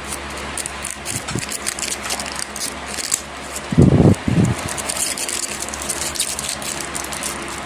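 Thin protective plastic film being peeled off a plastic USB charger brick, crackling and crinkling with many fine clicks throughout. A short low bump about four seconds in is the loudest moment.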